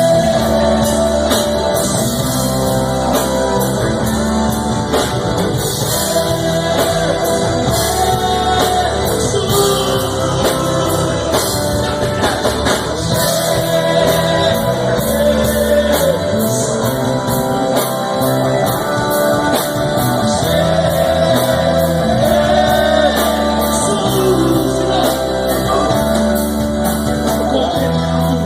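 A live church band plays a Christian song with drum kit and guitar, keeping a steady beat at a constant loud level.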